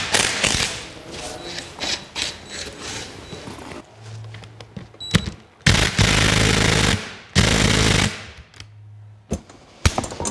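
Cordless DeWalt impact driver backing out the Allen screws on an ABS modulator: the motor runs lightly, then two loud rapid hammering bursts of about a second each come a little past the middle, and the motor runs lightly again after. Before that, light clicks of tools and parts being handled.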